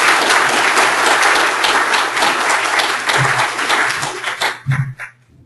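Audience applauding, loud and dense, tapering off and stopping about five seconds in.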